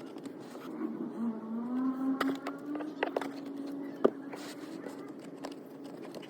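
A steady pitched hum that rises a little about a second in and then holds level, with a few sharp clicks, the loudest about four seconds in.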